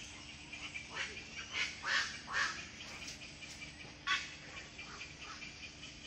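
A colony of herons and egrets calling: a steady high chatter of many birds, with loud harsh squawks about one to two and a half seconds in and again at about four seconds.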